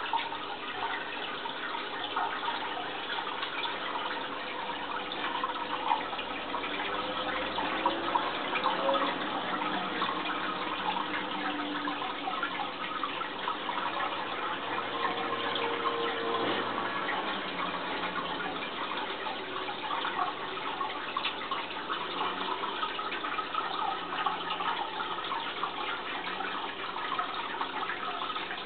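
Aquarium water bubbling and trickling steadily, a dense crackle of small splashes from the tank's water circulation.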